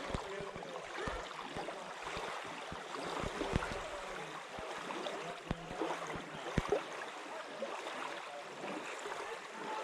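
Small waves washing and lapping at the water's edge, an even rushing with scattered short clicks and knocks at irregular spacing.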